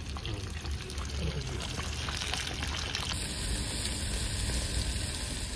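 Breaded oysters deep-frying in hot oil, a steady sizzle. About three seconds in it changes to the sizzle of scallops cooking in butter and soy sauce in their shells on a grill over open flame.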